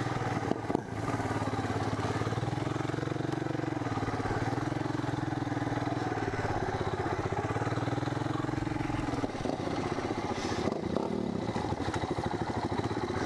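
1985 Honda 250SX three-wheeler's engine running as it is ridden over rough ground, the revs rising and falling twice, then easing off to a lower, rougher run for the last few seconds. There is a brief clatter about half a second in.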